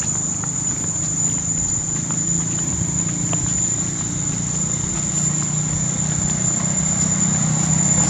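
Insects droning steadily on one high pitch, over a low, steady hum.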